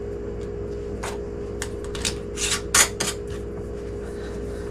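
Wide-mouth glass canning jar and its lid being handled: a scatter of short rubs, scrapes and clicks, loudest a little past the middle, as the rim is wiped clean and the lid is set on. A steady low hum runs underneath.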